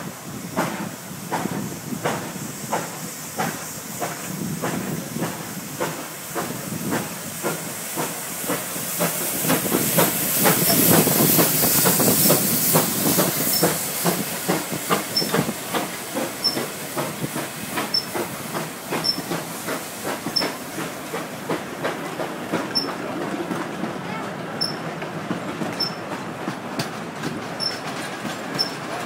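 Steam locomotive pulling away from a standstill, its exhaust chuffs coming quicker as it gathers speed. A loud hiss of steam swells for a few seconds about ten seconds in. Faint regular clicks run under it near the end.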